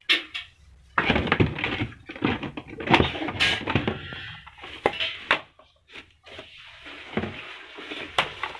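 Irregular handling noises: a string of knocks and clicks with rustling and scraping, as objects are moved about by hand.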